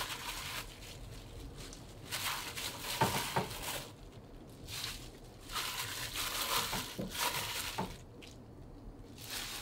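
Pot of water at a boil on a gas stove as raw chicken pieces go in to be scalded: on-and-off hissing, bubbling noise with a few soft knocks, about three seconds in and again about seven seconds in.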